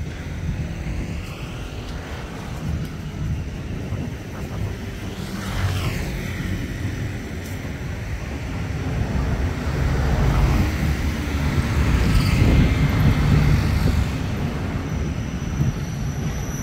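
Low rumble of passing motor traffic. It grows louder about two-thirds of the way through, then eases off.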